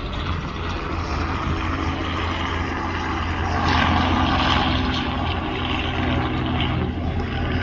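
Small two-bladed helicopter flying low past, its rotor and engine a steady drone that grows loudest about halfway through as it comes closest.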